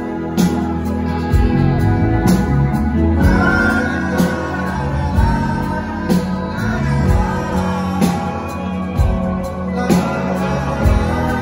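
Live rock band playing: electric guitar, electric bass, keyboard and drums, with a man's lead vocal coming in about three seconds in.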